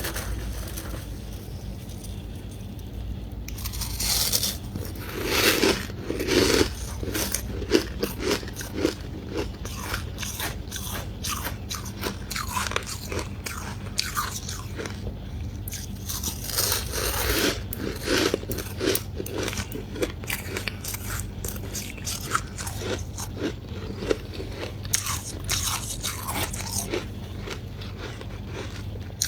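A person biting and chewing ice chunks and frost close to the microphone: dense, crisp crunching in bouts, after a quieter first few seconds.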